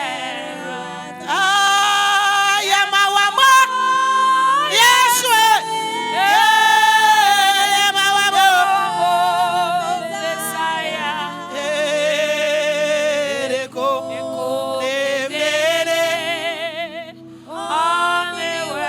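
A solo voice singing a slow gospel worship song with heavy vibrato and long sliding runs on held notes. A steady sustained accompaniment sits underneath.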